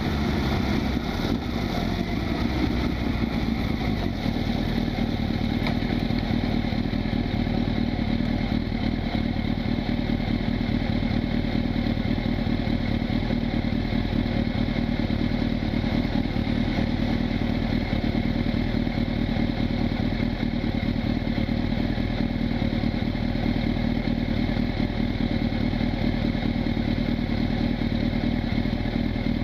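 Honda CB1000SF's inline-four engine running steadily at constant revs.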